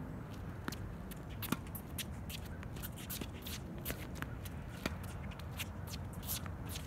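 Doubles tennis rally on a hard court: a few sharp racket-on-ball hits, about a second in and again near five seconds, amid a rapid run of footsteps scuffing and shuffling on the court surface.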